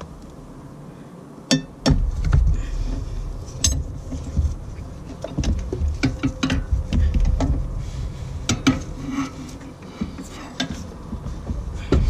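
Hand tools clinking and knocking against metal engine parts in irregular, sharp strikes, while working a bolt. From about two seconds in there is low rumbling handling noise on the microphone.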